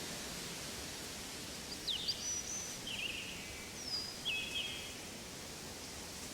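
A bird gives a short run of quick whistled chirps and downward-sweeping notes in the middle, over a steady rushing hiss of forest ambience.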